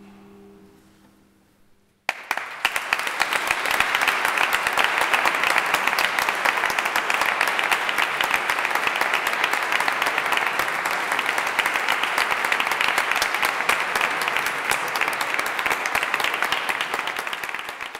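The last notes of a many-stringed guitar ring and die away, then, about two seconds in, an audience suddenly breaks into steady applause that tapers off near the end.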